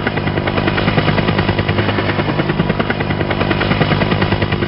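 Rescue helicopter hovering close by: the rotor blades beat in a rapid, even chop over a steady low hum, loud and unbroken.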